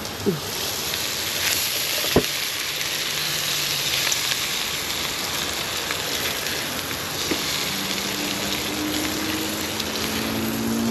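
Food frying in a hot pan: a steady sizzling hiss, with a sharp knock about two seconds in and a low steady tone coming in near the end.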